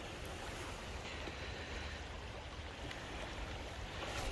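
Steady low rush of flowing river water, with no distinct events.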